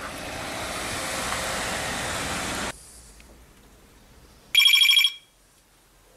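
A car drives past, its noise swelling and then cutting off abruptly about two and a half seconds in. Near the end a desk telephone rings once, a short electronic ring that is the loudest sound here.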